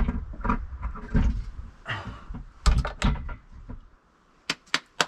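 Metal log lifter knocking and clunking against wooden roof rafters as it is lifted up and hung overhead. After a short pause come a few sharp clicks near the end.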